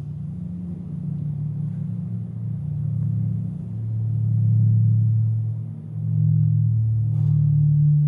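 Low droning ambient soundtrack: deep sustained tones that swell and shift in pitch every second or two, with a faint click about seven seconds in.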